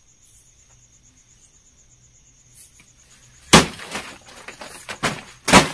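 A long metal pole swung up and whacking a hanging plastic packet: one sharp whack about three and a half seconds in, small knocks and rustling, then a second whack near the end. A cricket trills faintly and steadily underneath.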